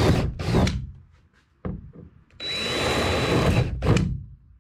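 Power drill cutting into a fiberglass boat hull for an inspection port, run in two bursts: a high motor whine that spins up and winds down each time, the second burst about a second and a half long.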